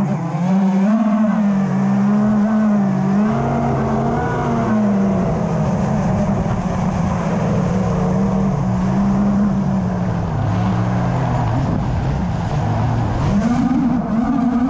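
Camera drone's electric motors and propellers whining, heard from the drone itself, with a hiss of rushing air. The pitch wavers up and down as the throttle changes and rises sharply near the end.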